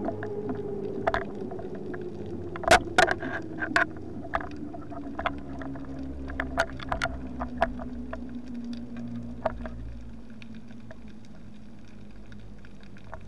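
Underwater recording of a distant motorboat's engine whine, its single tone sliding slowly down in pitch and fading toward the end, with scattered sharp clicks and knocks from the diver's gear.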